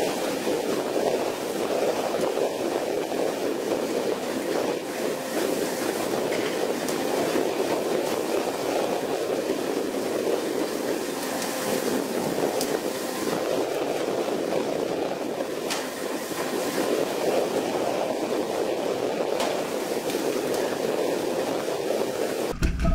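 Steady rushing noise of a fishing boat under way in rough sea: water churning and spraying along the hull, with the boat's running noise under it.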